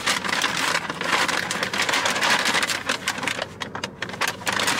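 Brown paper takeout bag rustling and crinkling loudly as it is handled and pulled open, a dense run of irregular crackles.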